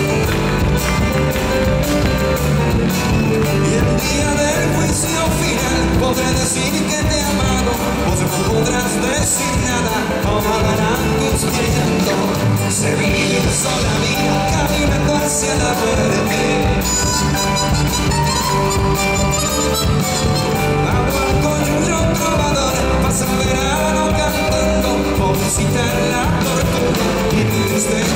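Live Argentine folk music: a male singer sings into a microphone over a full band accompaniment.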